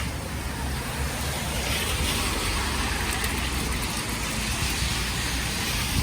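A car passing on a snowy street, its tyre hiss swelling over a couple of seconds and then fading, over a steady low traffic rumble.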